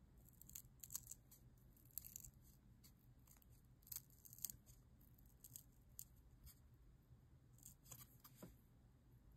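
Small scissors snipping through thin leather in short, irregular, quiet cuts, a snip every half second to a second or so, as a small cat shape is trimmed out.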